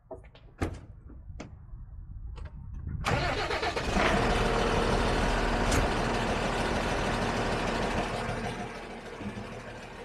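DAF LF diesel truck engine, heard with the cab tilted, starting up: a few clicks, then it fires about three seconds in. It runs fast and loud at first and settles to a lower, steady idle about eight seconds in.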